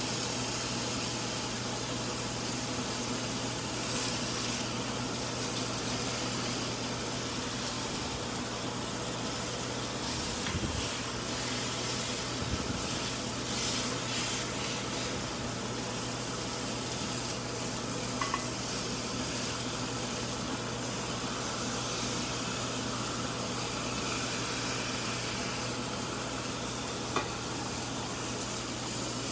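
Bone-in pork chops sizzling steadily on a hot ridged stovetop grill pan, with green beans charring in a pan beside them. A couple of short clicks stand out in the second half.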